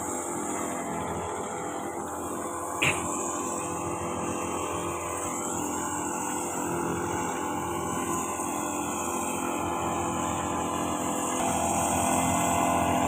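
Small two-stroke engine of a backpack motorized seed broadcaster running steadily at constant speed while it blows rice seed out over the paddy, with one sharp click about three seconds in.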